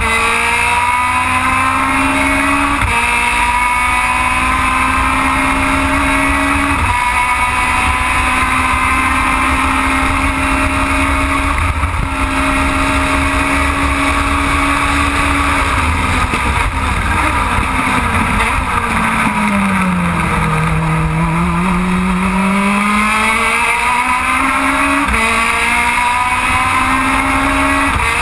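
Aussie Racing Car's 1.3-litre Yamaha four-cylinder engine heard onboard at high revs, stepping through a few gear changes. About two-thirds through the revs fall away under braking, then climb again as it accelerates out of the corner. Steady road and wind noise runs underneath.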